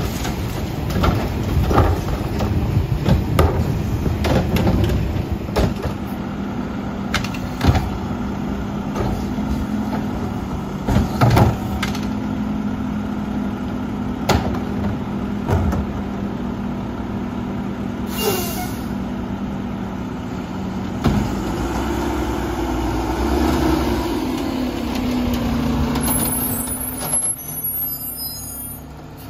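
Front-loader garbage truck with a Curotto-Can automated arm working a cart: the diesel engine runs steadily under hydraulic load while the cart knocks and bangs as it is dumped and set down in the first dozen seconds. Past halfway comes a short sharp air-brake hiss, then the engine rises in pitch as the truck pulls away.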